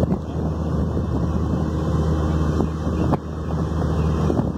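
Wind buffeting a phone microphone in the open, with a steady low hum underneath.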